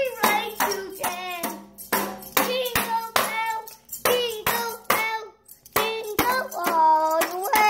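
A toddler singing wordlessly in a high voice around a pacifier while shaking a small toy maraca in a steady beat of about two to three shakes a second. There is a short pause a little past halfway, then one long held note that dips and rises in pitch near the end.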